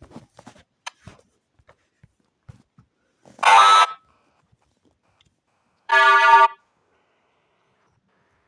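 Loud horn honks, two short blasts of about half a second each, roughly two and a half seconds apart, after a few faint scattered clicks.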